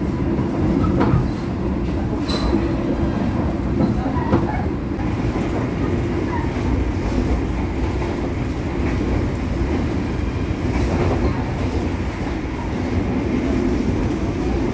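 Argo Cheribon passenger train running, a steady low rumble with a few sharp clicks and knocks in the first few seconds.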